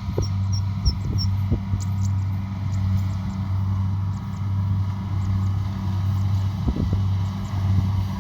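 Kubota DC70 Pro combine harvester running steadily at working speed, its engine giving a low, even hum with a few short knocks from the machinery.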